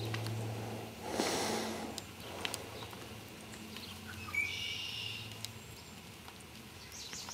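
Half-Arabian horse snorting once, a breathy blow through the nostrils lasting about a second, about a second in.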